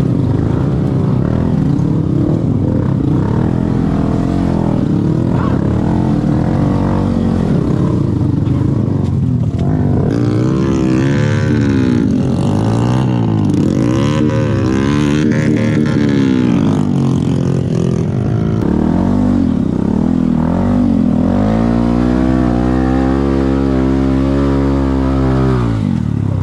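Honda Grom mini motorcycle's single-cylinder engine revved up and down again and again, with a longer held rev over the last few seconds.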